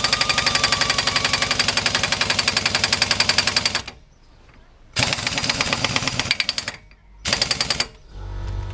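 Impact gun hammering on a car's driveshaft hub nut in three bursts, one long run of about four seconds, then two shorter ones. The nut does not shift.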